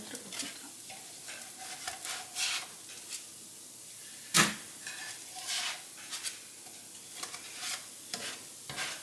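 Arepas sizzling in a little oil in a nonstick frying pan, with scattered light clicks and scrapes of a slotted spatula working them in the pan. A single sharp knock about four and a half seconds in is the loudest sound.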